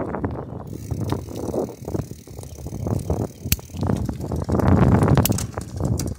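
Bicycle rolling along an asphalt path: a low rushing noise from the tyres and passing air that swells and fades, with a few sharp clicks from the bike.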